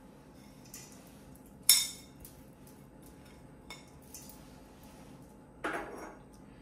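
A ceramic plate clinks sharply once against a steel mixing bowl about one and a half seconds in, with a few lighter taps and a short soft rustle near the end.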